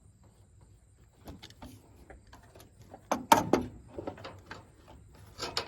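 Metal tool clicking and scraping on a battery cable terminal clamp as it is being tightened onto the post, in irregular short strokes, with a louder burst of scraping a little past halfway and another near the end.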